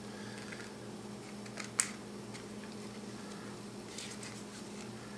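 Light handling noise: a few soft clicks and rustles of small plastic parts being handled, with one sharp click about two seconds in, over a steady low electrical hum.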